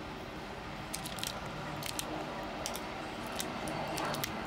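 Plastic keycaps being pulled off a HyperX Alloy FPS mechanical keyboard and set down on a cloth: irregular small sharp clicks, about eight over a few seconds.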